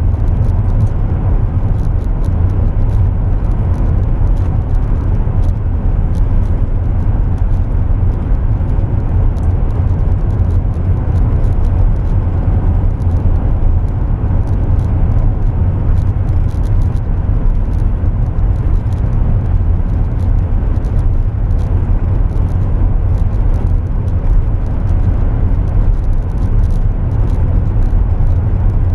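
Steady road noise inside a car cabin at highway speed: tyres and engine giving an even low rumble.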